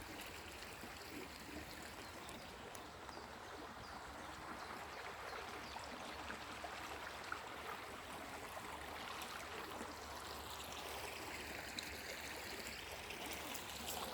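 Flowing water running steadily, an even rush with a light trickle.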